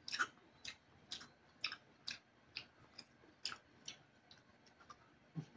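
Faint mouth smacking from chewing food, about two wet clicks a second, some louder than others.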